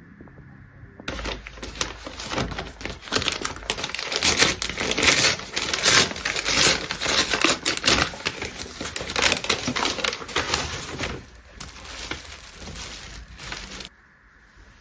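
Dense crinkling and crackling handling noise, like material being crumpled or scrubbed, starting about a second in and cutting off suddenly near the end.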